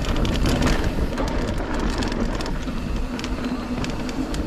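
Riding noise from a Polygon Siskiu mountain bike descending a dry dirt trail: tyres rolling and crunching over dirt, many small clicks and rattles from the bike over bumps, and wind buffeting the microphone as a low rumble.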